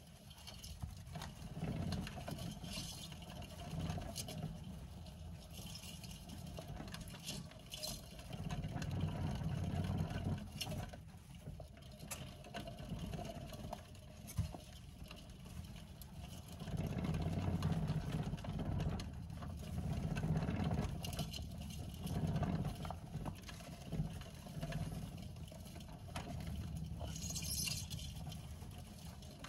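Clear plastic saucer wheel rumbling as Djungarian hamsters run on it, the rumble swelling and fading, with a few short scratchy rustles of paper bedding.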